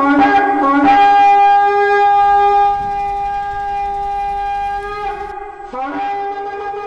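A shofar (ram's horn) being blown: a few quick broken notes, then a long held blast that sags and breaks off about five seconds in before sounding again.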